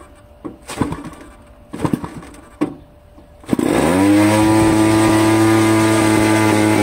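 Model-aircraft engine being hand-started by flipping its propeller: a few scattered knocks, then about three and a half seconds in it catches, revs up briefly and settles into a steady, loud idle. It is a new engine being run in.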